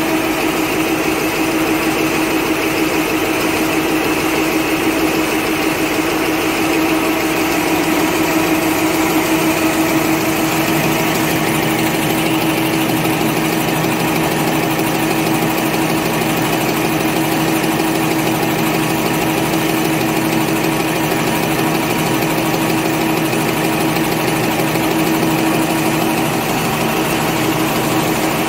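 Napkin paper folding machine running steadily: a continuous mechanical drone with a steady hum from its motors, rollers and folding gear.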